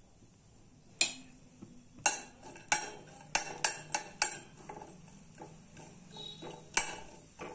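Steel spoon knocking and scraping against a stainless steel kadhai while stirring almond slivers being roasted in a little ghee. One sharp knock about a second in, then a quick irregular run of about seven knocks, and another near the end.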